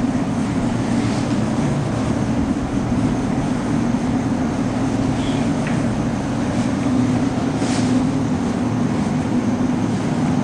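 Chalkboard duster rubbing steadily across a chalkboard as it is wiped clean, a continuous scrubbing noise.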